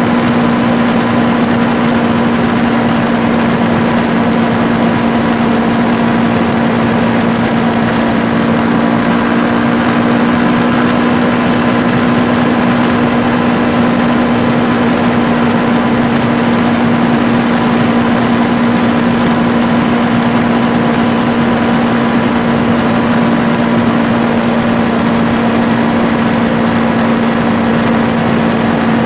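Kawasaki Ninja 650R's parallel-twin engine running at a steady pitch while the motorcycle cruises, heard from a phone mounted on the bike, with a constant rush of wind and road noise over it.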